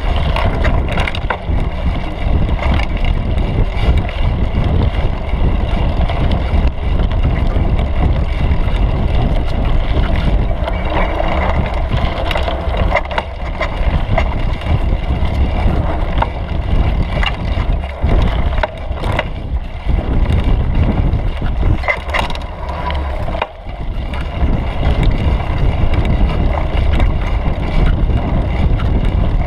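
Mountain bike riding a bumpy dirt trail, picked up by a camera mounted on the seat post: a steady low rumble of tyres and frame, with frequent short knocks and rattles from bumps.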